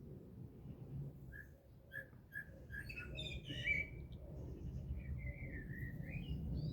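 Garden birds calling: a run of short chirps, then a longer whistled phrase that wavers, dips and rises near the end, over a steady low background rumble.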